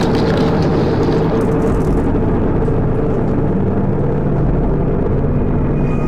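A loud, steady, low droning rumble with held deep tones, a dark ambient drone, opened by a sharp click.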